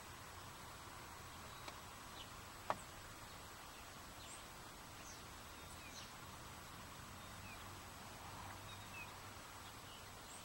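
Faint outdoor ambience with scattered short, high chirps of distant birds, and one sharp click about two and a half seconds in.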